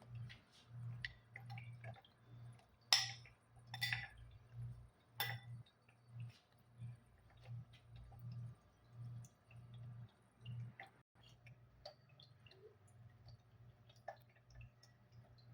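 Scattered light clinks and taps of kitchenware, with three sharper clinks about three, four and five seconds in.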